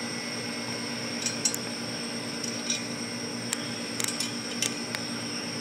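Scattered light metallic clicks and clinks of steel washers and nuts being handled and fitted onto the handlebar-clamp bolts of a minibike, over a steady background hum.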